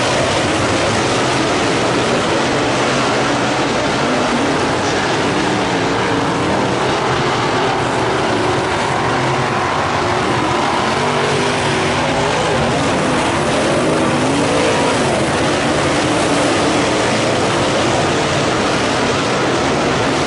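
V8 engines of dirt-track modified race cars running at speed around the oval, several at once, their pitch rising and falling as they lift and get back on the throttle through the turns.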